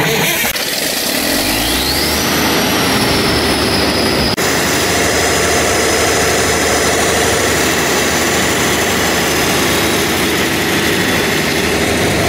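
Large Cummins diesel generator engine running loud and steady. About two seconds in, a whine rises in pitch and then holds.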